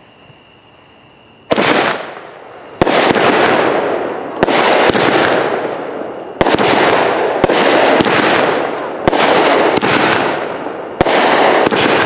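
Phantom Fireworks 7-shot 200-gram cake firing, starting about a second and a half in. Its shots launch and burst one after another as sharp bangs, each followed by a loud hiss that fades.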